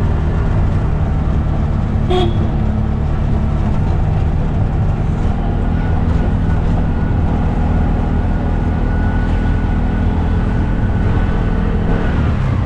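Auto-rickshaw engine running steadily, heard from inside the three-wheeler's open cabin while it drives. A short horn toot sounds about two seconds in, and the engine note drops near the end.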